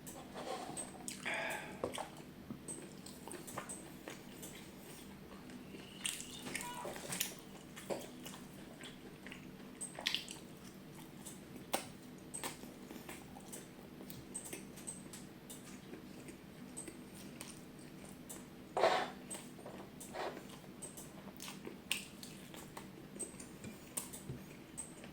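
Close-miked eating sounds: chewing and biting into a hamburger and fried chicken, with wet mouth clicks and a few louder squishy bites scattered through.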